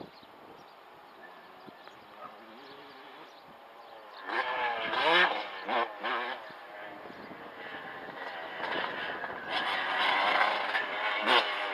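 Dirt bike engine revving up and down, faint at first and loud from about four seconds in, easing briefly, then running hard again and loudest near the end.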